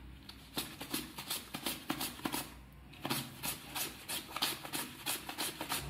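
Raw potato being slid back and forth across a plastic mandoline slicer's steel blade, a quick scraping cut about four times a second, with a short pause about halfway through.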